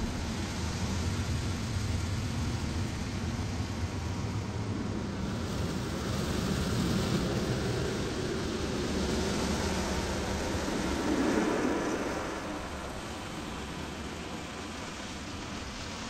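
Automatic tunnel car wash heard from inside the car: a steady rush of water spray and washing brushes working over the body. It swells louder through the middle, then drops to a quieter hiss about three-quarters of the way through.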